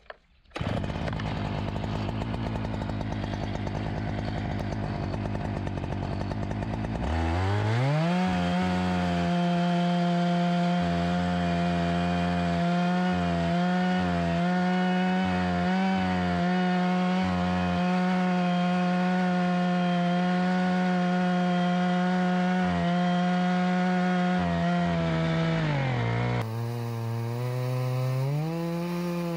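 Husqvarna chainsaw in a chainsaw mill, idling for several seconds, then revved to full throttle and held there as it rips lengthwise through a cedar log, its pitch dipping slightly now and then under the load. Near the end the engine drops back and then revs up again.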